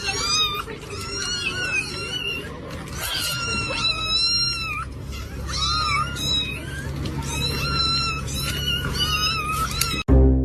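A cat meowing over and over, about ten high calls that rise and fall in pitch, over a steady low hum.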